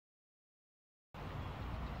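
Dead silence for about the first second, then steady open-air background noise with a strong low rumble and no distinct impacts.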